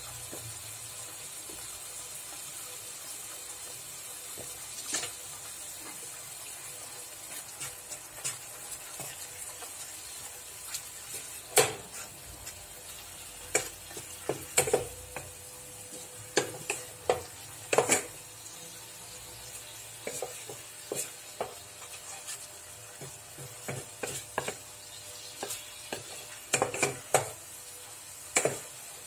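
Wooden spatula stirring chicken pieces and curry spice powder in a frying pan, with irregular sharp taps and scrapes against the pan that come more often in the second half, over a steady faint sizzle of the chicken frying.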